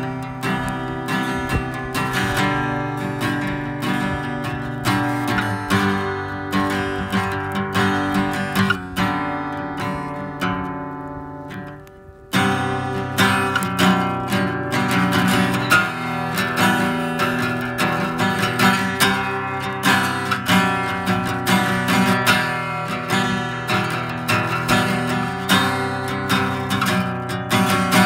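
Steel-string acoustic guitar played with picked and strummed chords. The playing dies down about twelve seconds in, then starts again abruptly.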